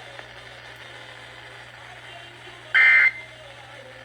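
Emergency Alert System end-of-message data burst: a short, loud, harsh two-tone digital chirp about three seconds in, with the next identical burst starting right at the end. This is the closing code that ends a Required Monthly Test.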